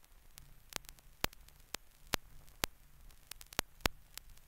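Surface crackle of an old film soundtrack carrying no recorded sound: irregular sharp clicks and pops, about two a second, over a faint low hum and hiss.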